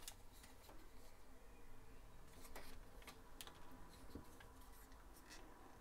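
Faint, scattered clicks and small knocks of hard plastic parts as the leg sections of a T-11 Rescuer transforming robot figure are worked loose and untabbed by hand.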